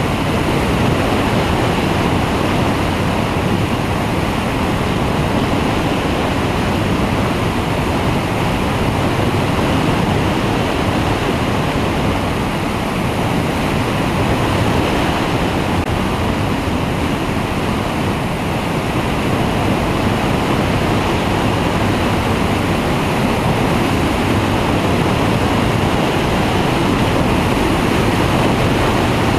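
Steady rush of wind buffeting the microphone of a wing-mounted camera on a flexwing microlight trike in flight, with the trike's engine and pusher propeller droning underneath.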